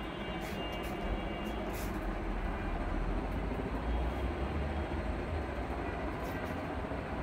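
Steady low rumbling background noise with a few faint high ticks.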